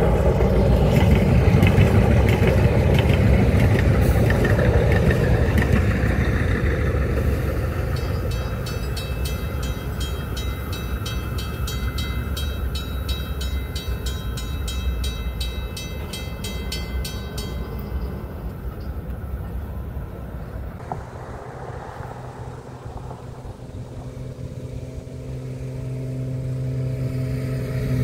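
A train running past a grade crossing, loud at first and fading away, while the crossing's mechanical warning bell rings in an even rhythm. Near the end a low steady hum grows louder.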